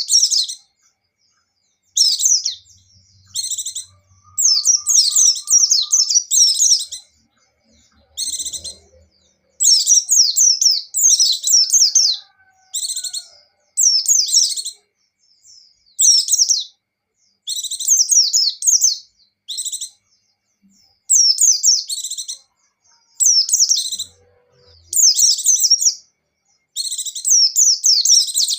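White-eye (pleci) singing: short bursts of rapid, high, falling twittering notes, repeated again and again with brief gaps between.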